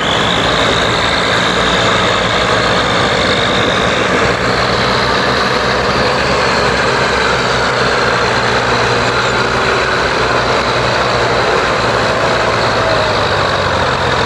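Diesel tractor engines running hard under load, pulling a sugarcane-loaded trolley stuck in mud, with a steady high whine over the engine note.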